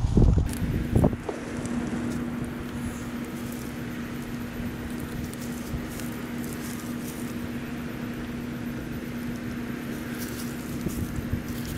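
A steady mechanical hum at one constant pitch, with a few low knocks in the first second or so and faint light clicks later on.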